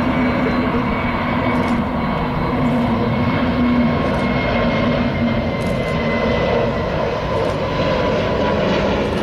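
Jet engines of a taxiing Boeing 767 running at low power: a steady rumble with a whine held on several pitches.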